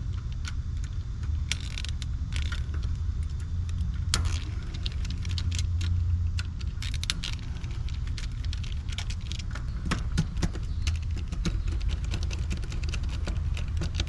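Metal clicking and light rattling, irregular and thickening from about four seconds in, from a screwdriver and wire terminals being worked on an AC condenser's contactor, over a steady low rumble.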